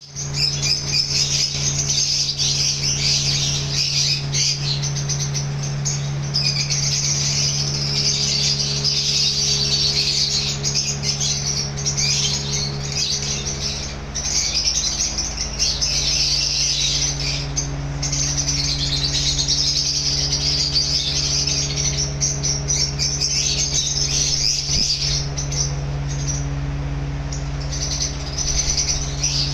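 A flock of lovebirds chattering with constant, overlapping high chirps over a steady low hum.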